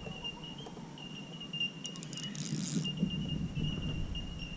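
Spinning reel and rod working against a hooked fish: low handling and winding noise with a short run of metallic clicks about two seconds in.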